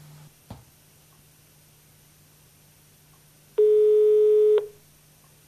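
German telephone ringback tone heard in a phone handset: one steady beep about a second long, starting about three and a half seconds in. It is the ring signal on the line, meaning the called phone is ringing and nobody has answered yet. A short click comes about half a second in.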